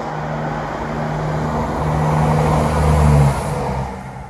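Class 170 Turbostar diesel multiple unit passing close by, its diesel engines giving a steady low hum that builds to a peak about three seconds in, then fades quickly as the train goes by.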